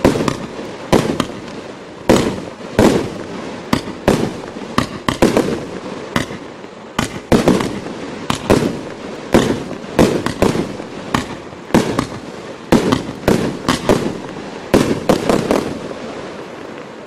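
Absolute Fireworks 'Original' barrage cake firing a rapid, uneven string of sharp bangs, about two a second, each with a brief echo. The shots stop a little before the end and the sound dies away.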